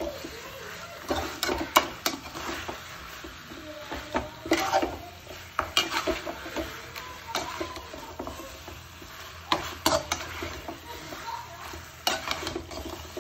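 Metal spoon scraping and knocking against the sides of a metal kadai as mutton in masala is stir-fried, in irregular strokes, with a steady sizzle from the masala frying in the oil.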